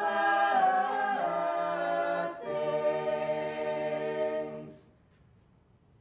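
Mixed-voice a cappella chamber choir singing the song's closing line, holding one chord and then moving to a final sustained chord that dies away about five seconds in.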